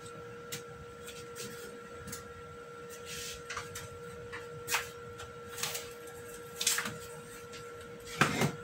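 A steady faint electrical whine on two pitches, with scattered short rustles and clatters of someone rummaging for a ruler, the loudest near the end.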